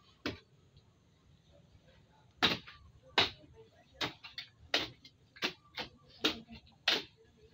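A long-handled garden tool chopping into the soil in a steady rhythm: one sharp strike with a faint scraping sound, about every three-quarters of a second, starting about two and a half seconds in.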